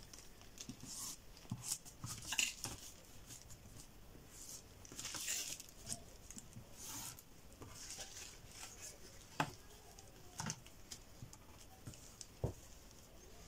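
Faint rustling and tapping as wooden drafting rulers are slid across and set down on a paper pattern sheet, with a few sharper knocks in the second half.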